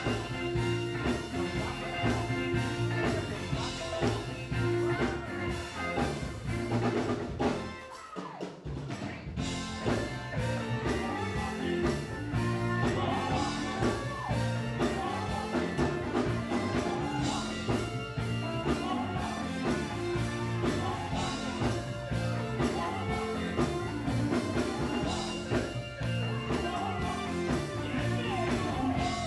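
Live gospel quartet music: men singing over electric guitars and a drum kit at a steady beat, with a brief drop in level about eight seconds in.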